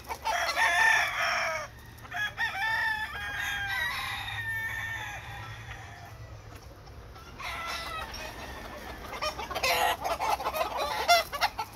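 Caged gamecock roosters crowing, several crows one after another in two bursts with a quieter lull in the middle.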